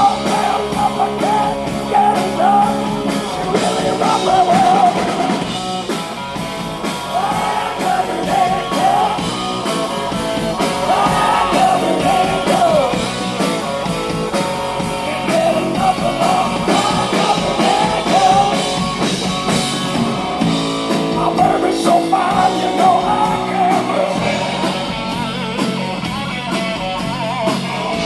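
Live blues-rock band playing loudly: electric guitar, bass and drums, with a lead line that bends and wavers in pitch over the band.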